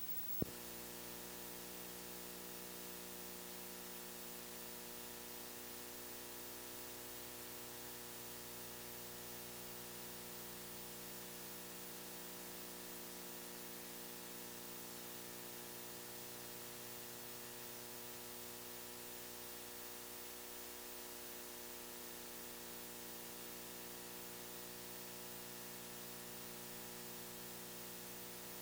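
Faint, steady hiss with a constant electrical hum: the noise floor of an old analog video recording with no programme sound on it. There is a single click about half a second in.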